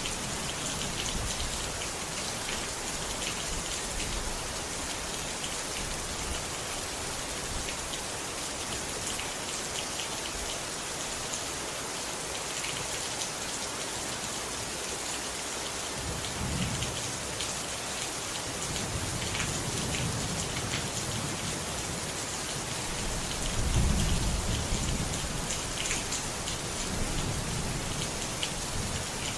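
Steady rain falling, with low rolls of thunder rumbling in several times during the second half, the loudest about two-thirds of the way through.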